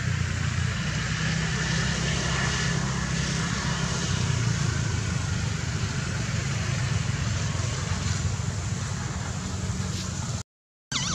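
Steady outdoor background noise, a low rumble with a hiss above it, broken by a brief dropout near the end.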